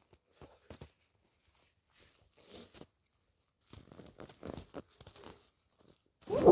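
Soft crinkling and rustling with faint clicks in a small room, then a sudden loud burst of breath at the very end, in the run of late-night sneezes.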